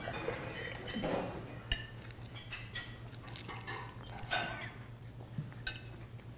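Cutlery and china cups clinking and tapping at a quiet meal: scattered light clicks, with one brief ring about four seconds in, over a low steady hum.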